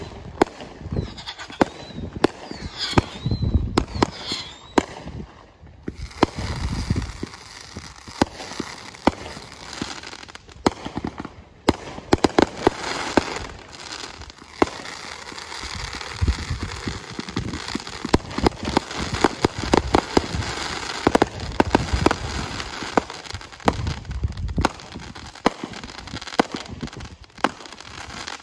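Fireworks display: aerial shells launching and bursting in quick succession, with many sharp bangs. From about six seconds in there is a near-continuous crackle under the reports.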